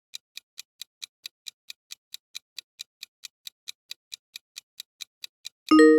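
Quiz countdown timer sound effect: a steady clock-like ticking, about four to five ticks a second, ending in a loud bell-like ding near the end that rings on as it fades, marking time up.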